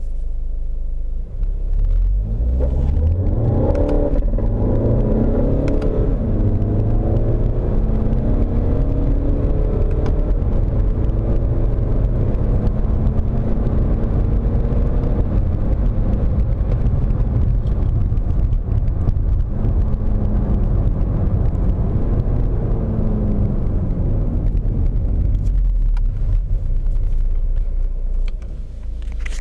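VW Golf 7 2.0 TDI diesel accelerating in low gear, the engine note rising as it pulls, with scattered clicks over the rumble. This is the crackling, twisting rattle under acceleration in 1st and 2nd gear that was cured by a new subframe.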